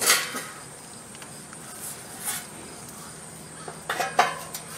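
Steel trailer fender being handled and set against the wheel: a short scrape at the start, then a few light metallic knocks with brief ringing near the end.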